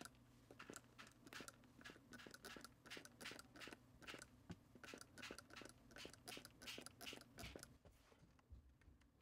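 Small hand-held spray bottle misting water onto watercolour paper: a faint run of quick squirts, about three a second, that stops near the end.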